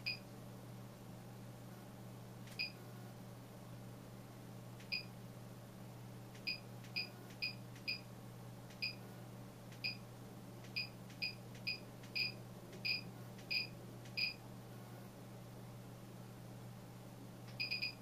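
Short high electronic beeps from the Arduino lighting controller, one for each remote-control press as its automatic shut-off timer steps up in 5-minute increments: about sixteen single beeps, closer together in the middle. Near the end a quick triple beep confirms the light's shut-off is scheduled for 60 minutes.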